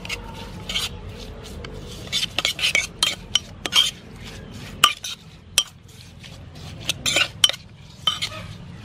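Metal spoon stirring and scraping in a pot, tossing sliced lemongrass in a thick sauce: irregular clinks and scrapes of spoon against the pot wall.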